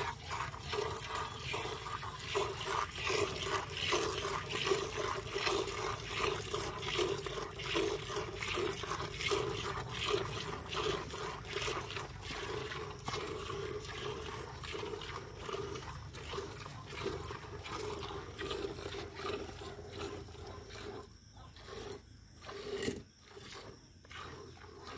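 Hand milking a cow into a steel bucket: milk squirts into the pail in a quick, steady rhythm of strokes as the teats are squeezed, breaking off for moments near the end.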